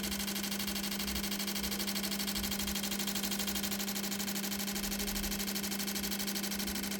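Fuel injector test bench running with the removed injectors firing: a steady hum under a fast, even pulsing. The number 3 injector is delivering next to no fuel, the cause of the cylinder 3 misfire.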